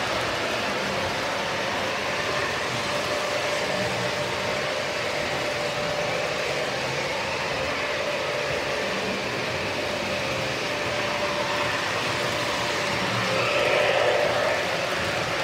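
Model trains running on the layout: a steady whir of motors and wheels on the track with a constant hum, swelling about thirteen seconds in as a blue diesel locomotive model passes close.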